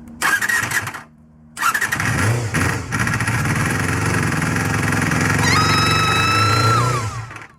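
Honda MC23 Jade motorcycle's MC14E 250cc inline-four engine starting: a short burst, a brief pause, then the engine catches and runs steadily before stopping near the end. A high steady whine joins in about two-thirds of the way through.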